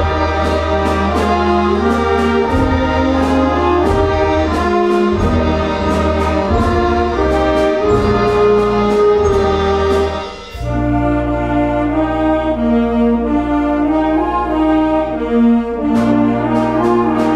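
Adult community concert band playing, with brass and woodwinds holding chords over a low bass line. A steady percussion tap comes about twice a second; it stops about ten seconds in and comes back near the end.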